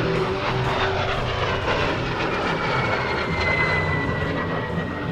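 de Havilland Vampire's Goblin turbojet running in a display pass, its high whine falling slowly in pitch as the jet goes by.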